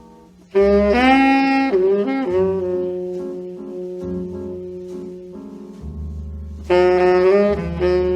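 Instrumental music, jazz-like: a lead melody of long held notes over low bass notes. The lead comes in loudly about half a second in and again near the end.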